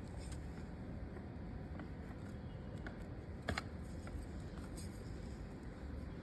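Low steady room noise with a few faint, light clicks, the clearest about three and a half seconds in.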